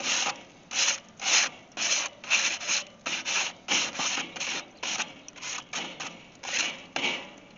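Crumpled aluminum foil scrubbed back and forth across the metal cooking grate of a Weber charcoal kettle grill, cleaning it in place of a grill brush. Rapid scraping strokes about two a second, tailing off near the end.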